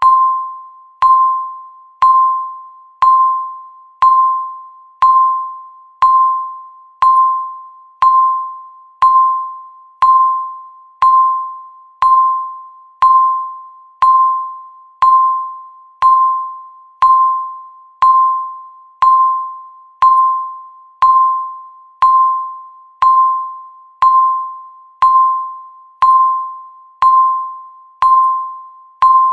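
Countdown timer's electronic beep marking each second: a single mid-pitched tone once a second, each starting sharply and fading out before the next.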